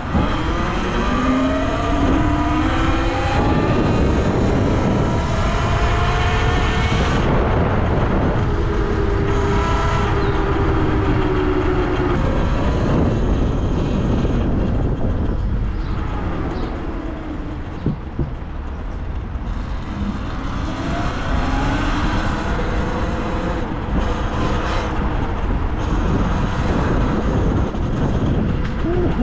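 Talaria Sting electric dirt bike's motor whining while riding, its pitch rising and falling again and again as the bike speeds up and slows, over a steady low rumble.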